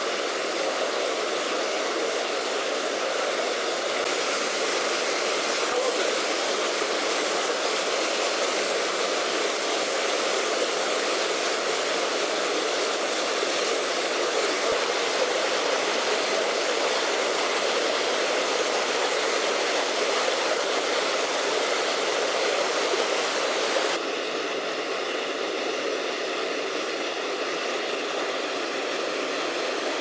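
Waterfall in a rocky gorge, water falling steadily into a stony pool with a dense, even rush; about 24 s in it drops a little in level.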